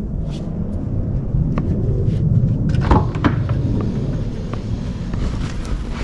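Steady low rumble on the microphone, with a few light clicks and knocks in the middle.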